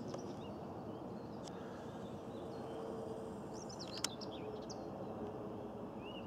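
Steady outdoor background noise with faint bird chirps about three to five seconds in, and a single short click about four seconds in.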